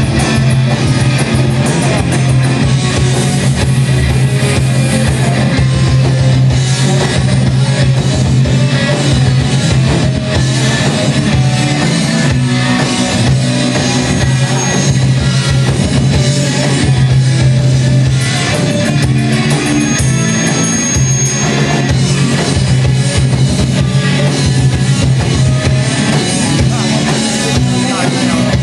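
Heavy metal band playing live: distorted electric guitars, bass guitar and drum kit, loud and continuous.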